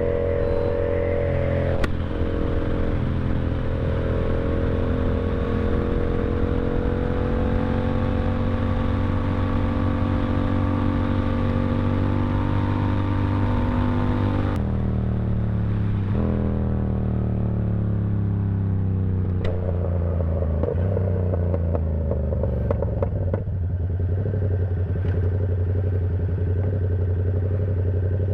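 Yamaha R7's parallel-twin engine running under way, revs climbing slowly for about fourteen seconds. Then the throttle closes and the revs fall away over several seconds, pick up briefly, and settle to a steady low running near the end.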